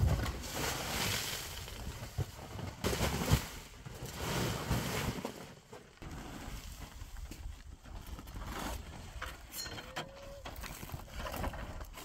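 A heavy woven rug rustling and dragging over the ground as it is pulled, in several noisy bursts. About halfway through it gives way to a quieter outdoor hiss with a few faint small knocks.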